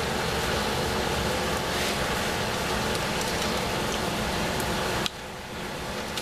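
Steady whirring room noise, with a few faint clicks from a Lee hand priming tool as a .223 case is fitted into its shell holder and the lever is squeezed to seat a primer. The steady noise drops abruptly about five seconds in.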